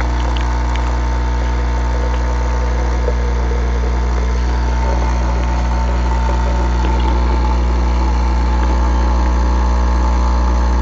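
Nescafé Dolce Gusto Genio capsule machine's vibration pump running as it brews hot into a glass, a steady low buzz.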